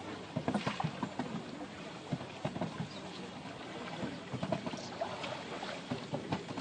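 Several paddles dipping and splashing in river water as a crew paddles a flat-bottomed assault boat, in short irregular splashes over a steady outdoor hiss.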